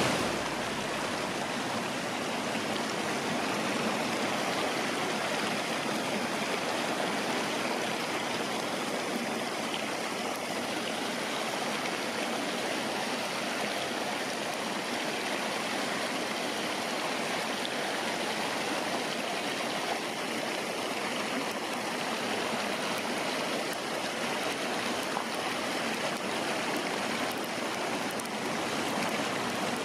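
Rocky mountain creek rushing steadily over stones and riffles.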